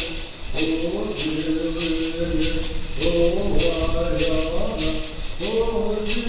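Native American song: a voice chanting a held, slowly gliding melody over a hand rattle shaken in a steady beat, about three shakes every two seconds.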